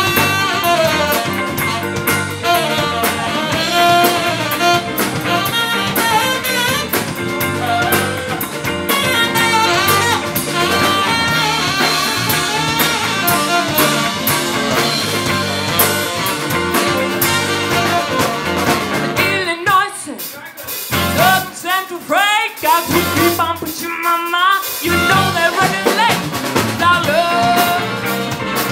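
Live band playing an instrumental stretch on drum kit, electric guitar, bass and saxophone, with trumpet joining near the end. About twenty seconds in the drums and bass drop out for a few seconds, leaving the melodic lead almost alone, then the full band comes back in.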